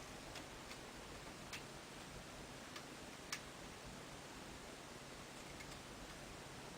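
Small screwdriver and tiny screws clicking faintly and irregularly, about five times in the first half, as screws are fitted into a laptop LCD screen's mounting brackets, over a steady low hiss.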